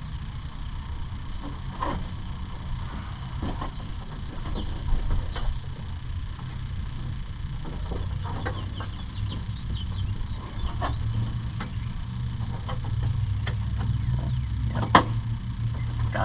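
Scattered light clicks and knocks of hands working at the plastic release clip and headlight housing of a Dodge Ram, the sharpest knock near the end, over a steady low rumble. A few short high squeaks come in the middle.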